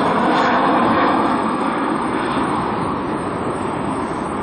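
Jet noise from a departing Boeing 737 airliner's twin turbofan engines at takeoff power, a steady rushing that fades slowly as the plane climbs away.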